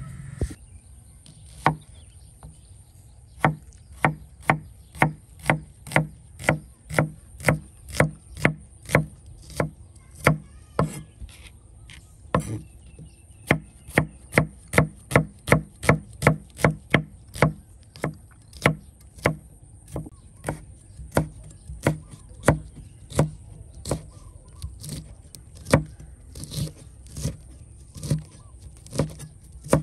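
A knife chopping food on a cutting board in steady, even strokes, roughly two a second, starting about two seconds in.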